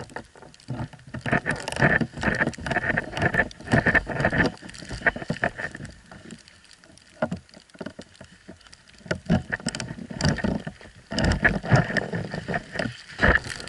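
Irregular scuffing, crunching and rustling of snow and ski clothing right against the camera's microphone as a skier sitting in deep powder moves about. It comes in bursts with a quieter stretch in the middle.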